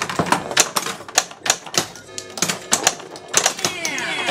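Williams Fire! pinball machine in play: rapid, irregular mechanical clacks of flippers, bumpers and the ball striking parts of the playfield. Near the end, a cluster of falling whistle-like tones comes in.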